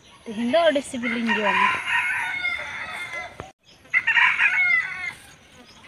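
A rooster crowing: a long crow from about a second in, then another after a short break.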